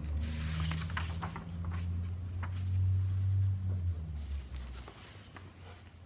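A hardcover picture book being handled and its pages turned, with papery rustles and small clicks, over a low rumble that fades out a little after the middle.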